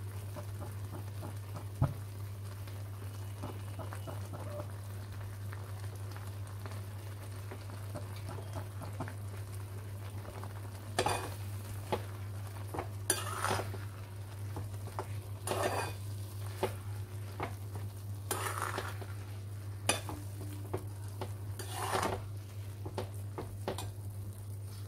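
Metal spatula stirring and scraping grated dried coconut through bubbling, sticky sugar syrup in a kadhai, with a faint sizzle. In the second half come about five louder scrapes of the spatula along the pan, two to three seconds apart, over a steady low hum.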